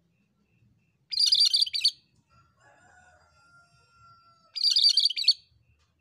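Cucak kerinci, a Sumatran bulbul, singing two short loud bursts of busy, chattering high song, each about a second long and some three seconds apart. A faint long thin whistle sounds between them.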